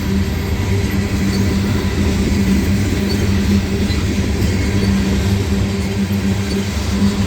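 Union Pacific freight train rolling past, a steady low drone and rumble with no break or change.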